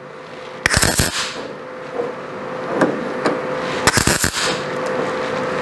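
MIG welder striking tack welds on a steel patch panel in a truck cab: two short crackling bursts of arc, each about half a second, about three seconds apart, over a steady hum.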